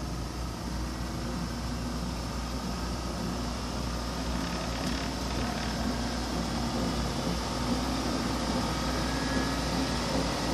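LS7.9T treadmill's drive motor and belt running at speed, speeding up toward 12 mph on a new control board; a steady mechanical hum and whir that grows gradually louder.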